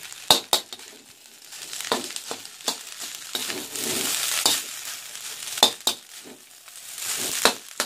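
Rice stir-frying in a pan: steady sizzling broken by irregular sharp clinks and scrapes of a metal spatula against the pan.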